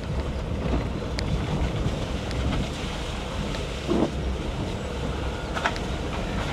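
Vehicle driving along a wet rural road: steady low rumble of engine and tyres with wind noise on the microphone, a few light knocks, and a short thump about four seconds in.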